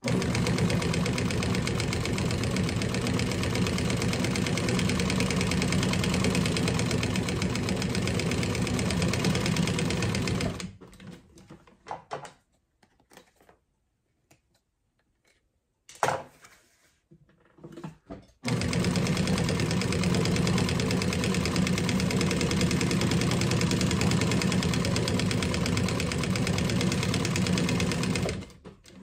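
Industrial flatbed sewing machine stitching steadily at speed through heavy black fabric, in two long runs of about ten seconds each. Between them is a pause of several seconds with a few clicks and handling sounds as the piece is turned and repositioned.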